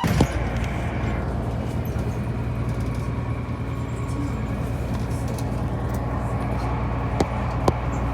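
A bus engine runs with a steady low drone, heard from inside the moving bus. Two sharp clicks come near the end.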